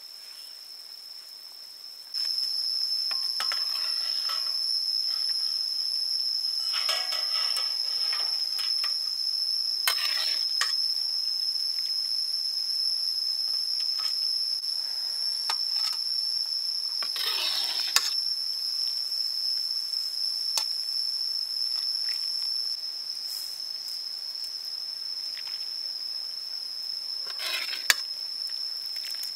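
A steady high-pitched insect drone that starts abruptly about two seconds in, with a few brief scrapes and clinks of a metal ladle against a wok and a metal serving dish.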